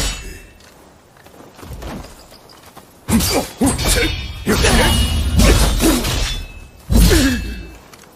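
Naginata combat sound effects: after a quiet start, a series of sharp strikes and clashes with ringing tails from about three seconds in, the last and one of the loudest about seven seconds in, then fading.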